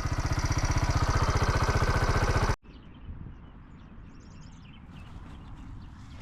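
A vehicle engine idling with an even, fast pulsing beat, cut off abruptly about two and a half seconds in. After the cut there is a low outdoor rumble with a brief high chirp.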